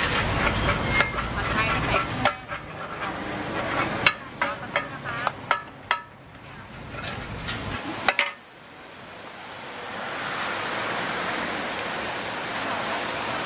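Two metal spatulas scraping and clanking on a large flat metal pan as pad thai noodles are stir-fried, with a run of sharp ringing clinks of metal on metal. About eight seconds in the spatula work stops, and a steady sizzle of the noodles frying on the hot pan rises.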